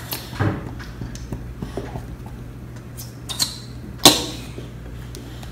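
Glitter glue being squeezed out of plastic squeeze bottles into glass bowls: a few short, scattered spurts, with the sharpest and loudest about four seconds in, over a steady low room hum.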